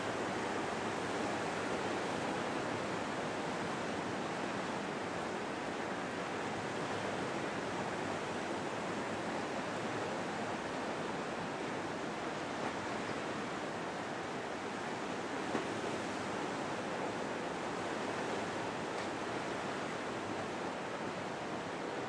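Steady rush of sea surf, an even noise with no rhythm or tones.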